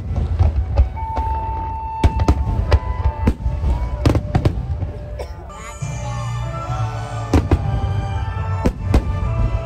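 Aerial fireworks bursting in a rapid, irregular series of sharp bangs over a low rumble, with music playing alongside.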